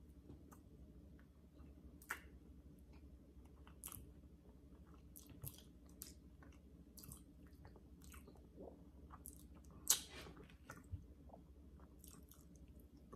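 A man chewing food close to the microphone: quiet, wet mouth clicks and smacks at irregular intervals, with a sharper one about two seconds in and another near ten seconds.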